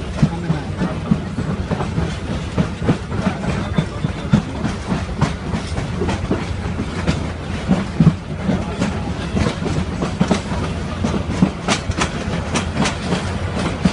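Train running on the rails: a steady rumble with many irregular clicks and knocks from the wheels and carriages.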